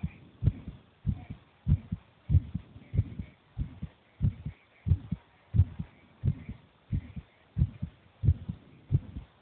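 A child's heartbeat, a steady lub-dub of paired low thumps at about one and a half beats a second.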